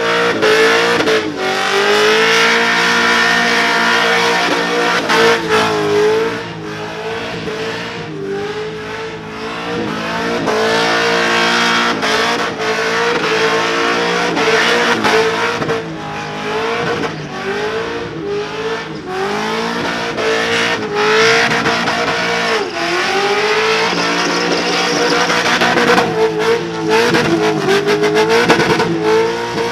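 V8 ute engine held at high revs through a burnout, the revs dipping and climbing back several times, over the hiss of spinning tyres.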